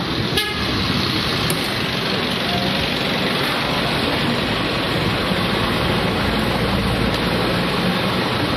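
A short vehicle horn toot about half a second in, over a steady loud rushing noise.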